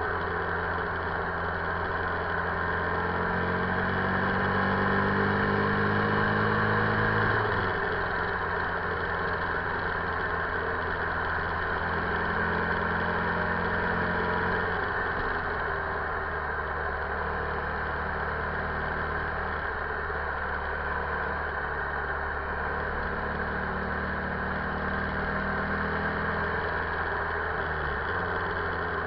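2008 Buell XB9SX's air-cooled V-twin engine pulling the bike along at road speed, the tachometer near 5,000 rpm, with wind rush over the microphone. The engine note rises and falls a few times as the throttle changes, dropping sharply about a quarter of the way in.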